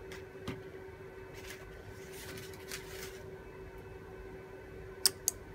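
Two sharp clicks about a quarter second apart near the end: the relays on 12V delay timer modules switching as the on-off loop restarts and the LED light comes back on. A faint steady hum runs underneath.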